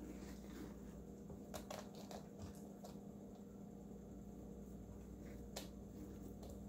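Faint wet scraping and squishing of a hand scooping seeds and stringy pulp out of a hollowed pumpkin, with a few soft clicks scattered through, over a steady hum.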